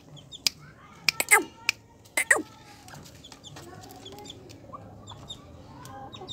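Small bantam chickens clucking, with a few short sharp calls about one and two seconds in, then softer, quieter clucking.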